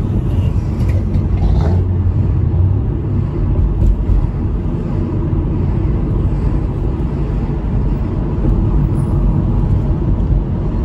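Steady low rumble inside the cabin of a 2001 Audi A4 2.8 Quattro while driving: road noise and the hum of its 2.8-litre V6 engine.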